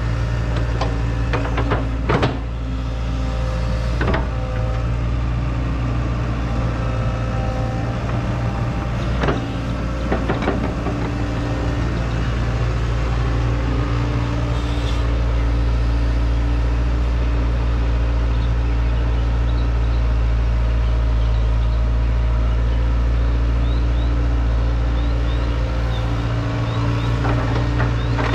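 Hydraulic excavator's diesel engine running steadily under load, with a few sharp metallic clanks in the first half.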